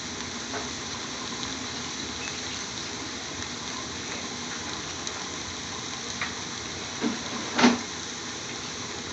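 Steady low hiss of chopped spinach and onions cooking in a pan over a low gas flame. A brief louder noise comes about seven and a half seconds in.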